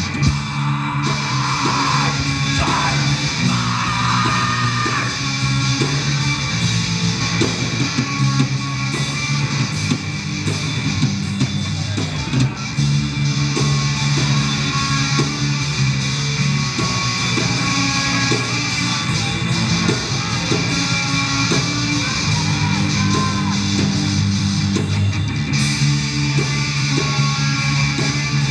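Live rock band playing loud: electric guitars and bass over a driving drum beat, with a singer shouting into the microphone.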